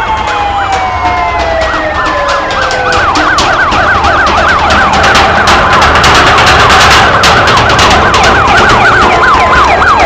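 Fire engine sirens: first a falling wail, then from about three seconds in a fast yelp rising and falling a few times a second. Many sharp clicks sound over it.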